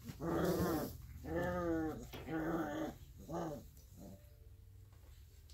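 Three-and-a-half-week-old Alaskan Malamute puppies making small play growls: four short, wavering calls in the first three and a half seconds, each fainter than the one before.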